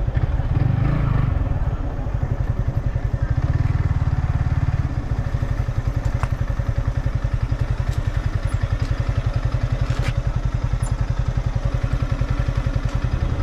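Motorcycle engine running with a fast, even low pulse, as heard while riding. A couple of short sharp knocks come about six and ten seconds in.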